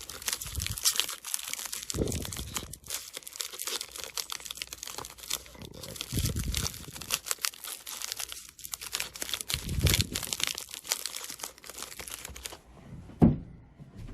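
Sealed mystery-pack wrapper crinkling and tearing as it is handled and opened, with a few dull bumps. One sharp knock near the end, after which the sound almost drops away.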